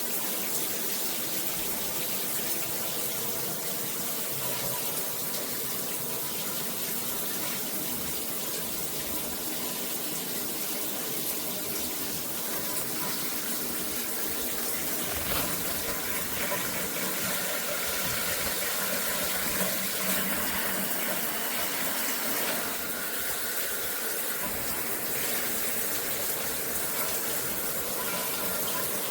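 Shower running: a steady rush of water spraying from the shower head.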